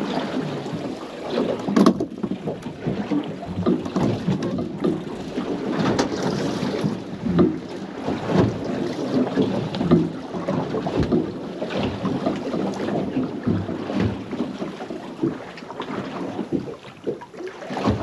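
Water chopping and slapping against the hull of a small boat in a tide run, an irregular wash with many small knocks, with wind buffeting the microphone.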